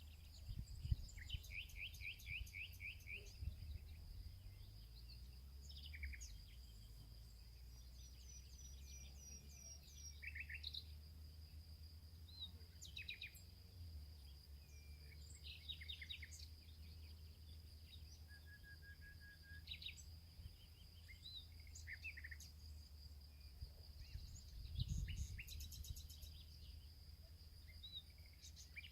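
Birds chirping and calling in short, scattered phrases over a steady, high-pitched insect drone. A low rumble runs underneath and swells briefly about 25 seconds in.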